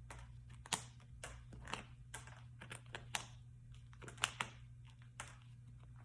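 Metal staples being pried up and pulled out of a plastic armrest console shell with hand tools: a string of irregular sharp clicks and snaps, about two a second.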